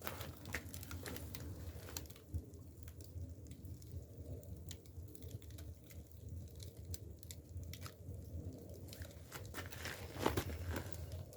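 Dry split-bamboo firewood burning in an agungi firebox: a low steady rumble of flame with scattered crackles and snaps, a louder burst of crackling about ten seconds in.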